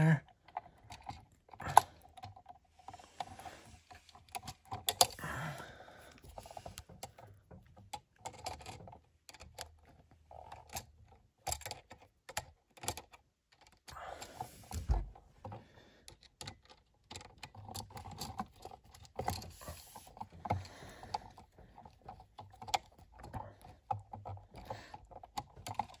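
Irregular small metallic clicks and scrapes of pliers and bare copper wire being bent and hooked onto an electrical outlet's terminal, with a few louder clicks and a dull knock about halfway through.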